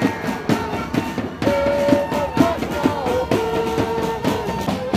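Music with a regular beat and a held, gently bending melody line.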